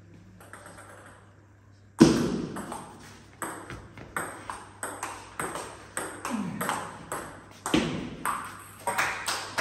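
Table tennis rally: the ball clicking sharply off the bats and the table in quick alternation, about two to three hits a second. The hits start about two seconds in, the first one the loudest.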